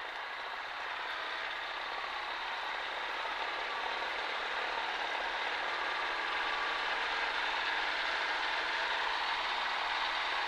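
Cessna 140A's single piston engine and propeller droning steadily inside the cockpit, growing gradually a little louder.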